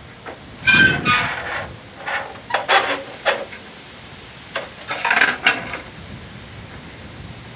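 Thin aluminum siding sheet being slid into and bent on a portable siding brake: several bursts of metallic rattling and scraping, with a brief ring from the sheet about a second in.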